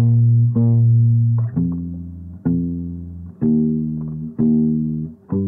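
Background music: slow plucked notes over a deep bass line, a new note or chord struck about once a second and each ringing and fading.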